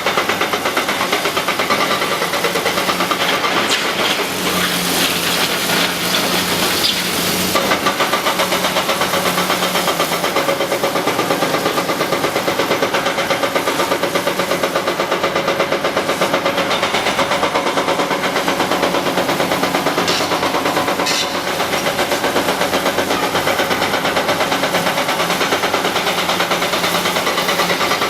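Cat 321C LCR excavator's diesel engine running steadily with a fast, even pulse, with a couple of sharp knocks about twenty seconds in.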